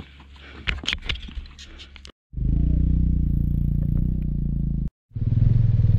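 Light scraping and clattering of riding gear being handled on stony ground. After an abrupt cut, a motorcycle engine runs steadily at a low pitch, breaks off, and comes back louder near the end.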